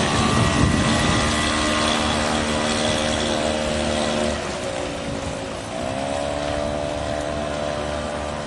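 Small boat motor running steadily as the craft moves off; its pitch dips about four and a half seconds in and climbs back a second or so later.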